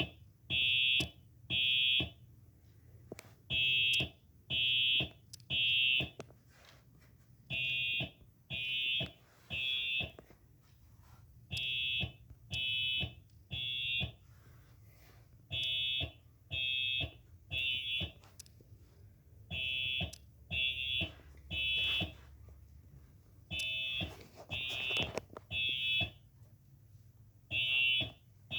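Simplex TrueAlert fire alarm horn sounding the temporal-three evacuation pattern: three short, high blasts, then a pause, repeating about every four seconds. It is a played-back sound of the horn.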